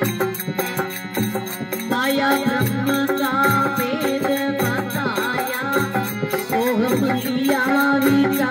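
Devotional bhajan sung to harmonium: harmonium chords over a steady percussion beat, with a man's singing voice coming in about two seconds in.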